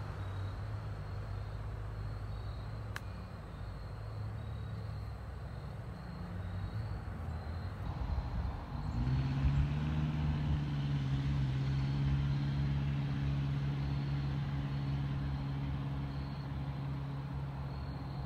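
Engine noise from a nearby motor vehicle: a low rumble at first, then about halfway through a steady engine drone sets in, its pitch rising briefly before holding level.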